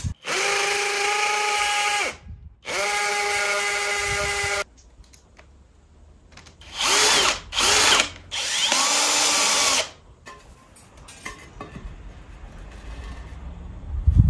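Electric drill-driver running in five bursts while driving screws into pumice building plates. The first two runs are long and steady, about two seconds each; the last three are shorter, and their pitch dips and recovers under load.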